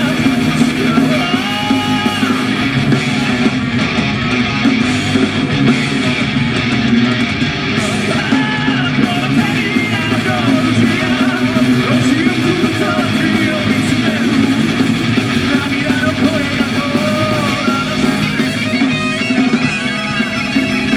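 Live heavy metal band playing at full volume: distorted electric guitars, bass and drums, with a male lead vocalist singing over them.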